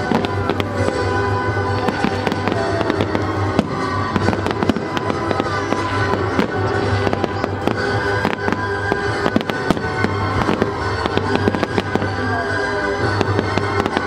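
Aerial firework shells bursting one after another, a dense run of sharp bangs and crackles, over music that plays throughout.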